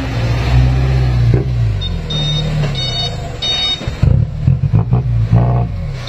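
Loaded diesel truck with an eight-pipe exhaust, revving as it pulls along a muddy track, its engine note rising and falling. Three short high beeps come about two to three and a half seconds in.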